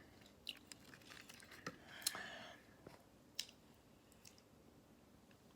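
Quiet eating at close range: a few faint sharp clicks and soft mouth sounds, with one longer breathy sound about two seconds in.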